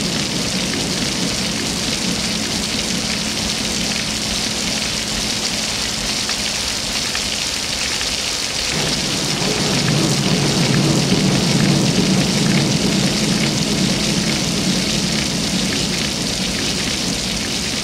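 Steady rushing noise like heavy rain, with a low rumble that grows louder about halfway through and then eases off.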